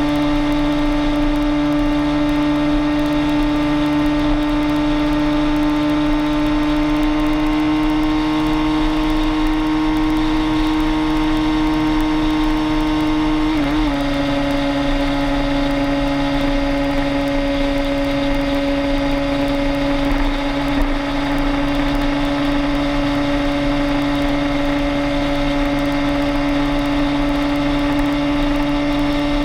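Vehicle engine running at steady highway cruising speed, a strong constant hum that creeps slowly up in pitch and dips slightly about 14 seconds in, over steady tyre and wind noise.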